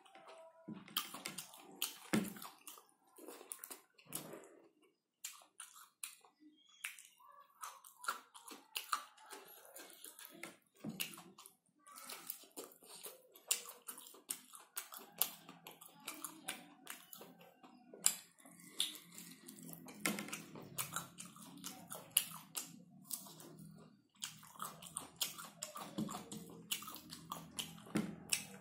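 Close-miked chewing and wet mouth sounds of a person eating pork and rice by hand: a dense, irregular run of short clicks and smacks.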